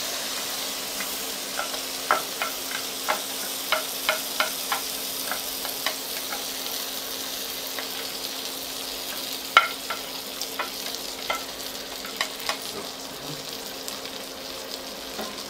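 Diced bacon frying and sizzling in a pot as a grated-potato mass is scraped into it from a glass bowl, with a steady hiss and many sharp clicks and taps of the spatula on the bowl and pot.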